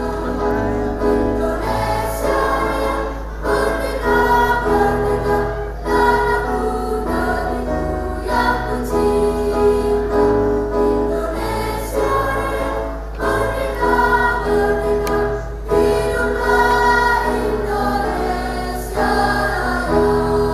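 A large crowd of schoolchildren and adults singing together in chorus, in phrases of held notes broken by short breaths every couple of seconds.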